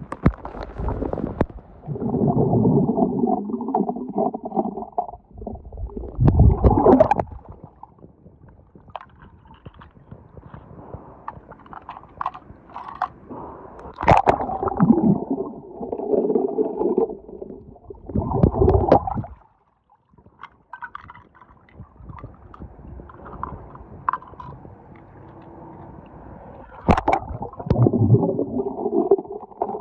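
Muffled underwater gurgling and sloshing of swimming pool water, heard through a submerged camera's microphone. Louder surges of bubbling come and go every few seconds, with quieter stretches between them.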